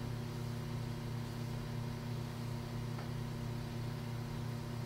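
A steady low electrical hum with a faint buzz of evenly spaced higher overtones.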